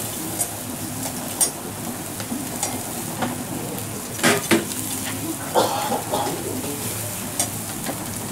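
Skewered eel fillets sizzling and crackling over a charcoal grill, with scattered sharp clinks as the skewers are turned and knocked against the grill, the loudest a quick pair about halfway through.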